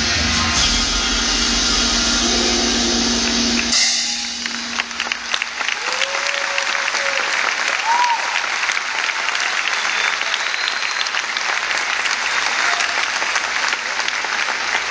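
Live band music with a heavy bass ends abruptly about four seconds in, and the audience applauds and cheers, with a few short calls rising over the clapping.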